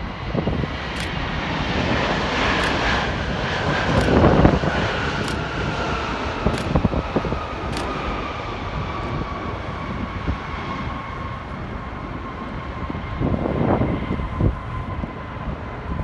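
Boeing 777-300ER's GE90 jet engines on the landing rollout: a loud, dense rumble with a whine that falls steadily in pitch throughout. The sound is loudest about four seconds in and swells again near the end.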